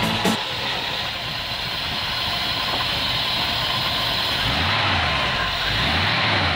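Chevrolet 350 small-block V8 idling steadily, heard close up from the open engine bay.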